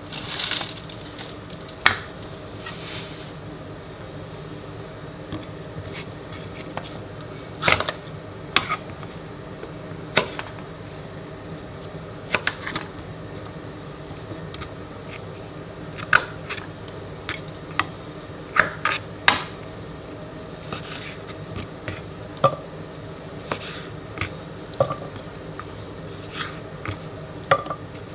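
Purple sprouting broccoli being trimmed on a wooden chopping board: irregular sharp snaps and knocks of stems breaking and hitting the board, a few every couple of seconds, over a steady background hum.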